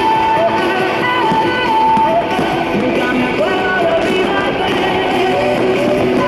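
Music: a song with strummed guitar and a sung melody line.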